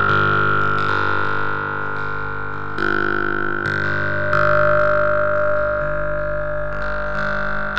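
Karplus-Strong plucked-string synthesis from a Pure Data patch, excited by non-white noise and run through reverb. A chain of synthetic plucked notes comes about once a second, each a bright attack that fades into long, overlapping ringing tones.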